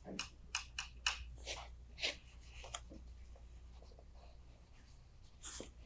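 Faint pen strokes and taps while writing: a run of short scratches in the first three seconds and another stroke near the end.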